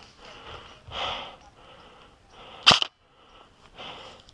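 A single sharp airsoft shot cracks out about two and a half seconds in, the loudest sound here, among softer breathy rustling.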